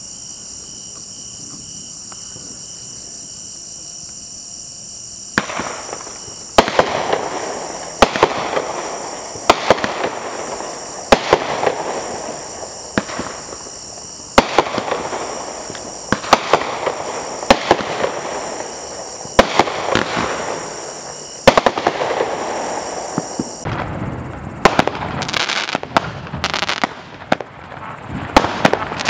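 Insects chirping steadily, then from about five seconds in a consumer aerial fireworks cake fires shot after shot, roughly one every second and a half, each a sharp bang that trails off. Near the end a second cake takes over with quicker, closer-spaced shots.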